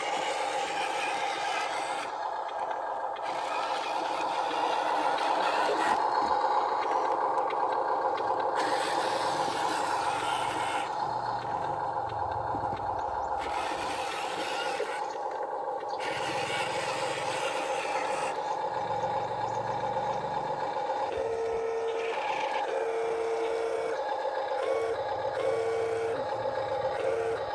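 Radio-controlled Huina toy dump truck's electric drive whining steadily as it drives over sand, with a run of short beeps near the end as it reverses toward the pile.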